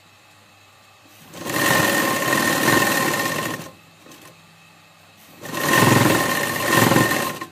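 Sewing machine stitching a sleeve seam, running in two bursts of about two seconds each with a short pause between, a steady whine over the needle's rapid chatter.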